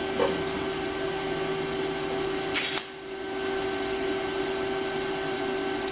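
Steady hissing buzz of a TIG welding arc on mild steel over the constant hum of the welder and a shop fan. A little under three seconds in it cuts off with a click, then ramps back up gradually as the foot pedal is pressed again.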